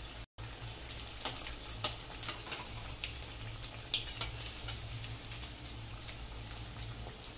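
Hot oil sizzling and crackling steadily as vermicelli-coated chicken cutlets deep-fry in a steel kadai on a low flame, with a very brief dropout just after the start.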